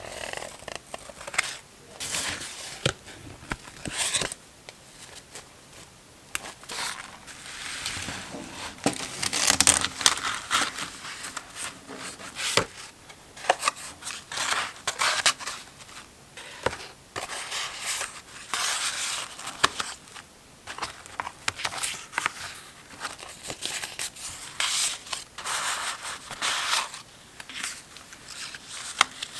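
Close-up paper-craft handling: a run of irregular paper rustles, crinkles and sharp clicks as paper and craft materials are worked by hand.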